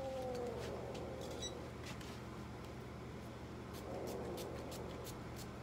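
A restrained domestic cat giving a low meow that falls in pitch at the start, then another faint yowl about four seconds in, with a few light clicks from handling over a steady hum.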